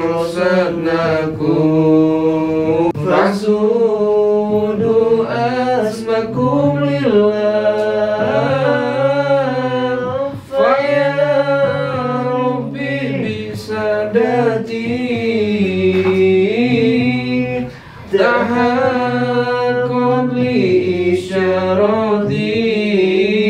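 Voices chanting together with long drawn-out, gliding notes, an Islamic devotional recitation (manakib) sung rather than spoken. It breaks off briefly for breath twice, about ten and eighteen seconds in.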